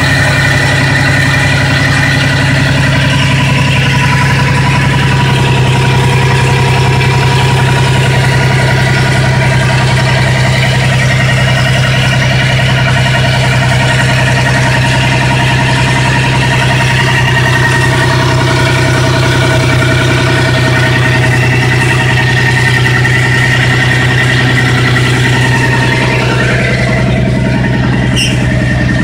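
A Chevrolet 262 cubic-inch (4.3 L) V6 in a 1989 S10 pickup, idling steadily and loudly at a constant engine speed.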